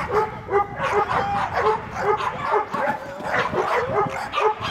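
Dog barking in a fast, steady string, about two to three short barks a second.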